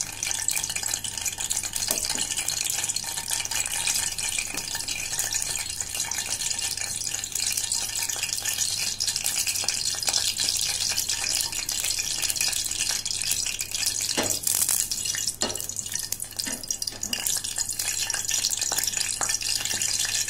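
Hot oil sizzling in a steel pot around an Indian bay leaf (tej patta) frying in it, a steady hiss. A few light knocks come about two-thirds of the way through.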